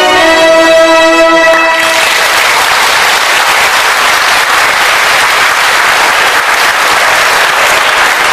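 Ensemble music ends on a held final chord about two seconds in, then audience applause.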